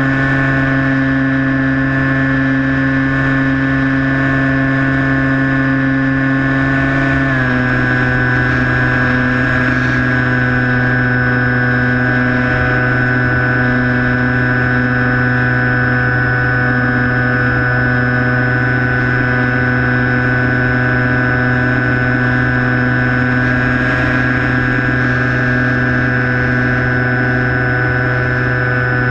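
Skywalker 1680 RC plane's electric motor and propeller whining steadily in flight, over a low rush of wind. The whine steps down a little in pitch about seven seconds in, then holds steady.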